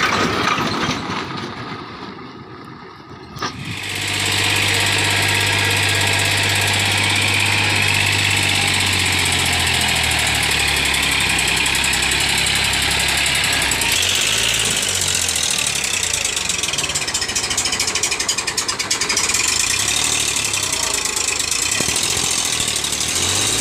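Massey Ferguson tractor's diesel engine working under load, hauling a trolley heaped with soil. The sound dips low in the first few seconds, then runs loud and steady from about four seconds in, turning rougher and more rattly about halfway through.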